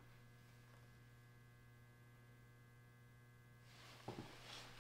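Near silence: room tone with a steady low electrical hum, and a faint click and rustle near the end.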